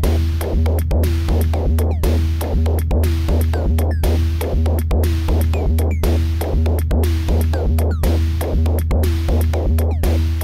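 Eurorack modular synthesizer playing a looping electronic percussion pattern. A deep bass pulse hits about four times a second, under short pitched notes that fall in pitch about twice a second and sharp clicking ticks.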